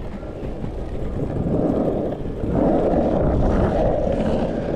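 Surf skate wheels rolling over a pump track: a steady rolling noise that gets louder about two and a half seconds in.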